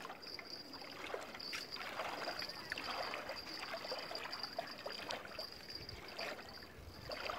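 Shallow river water swishing and lapping around a wading angler's legs in soft, irregular surges, with a steady high-pitched buzz behind it.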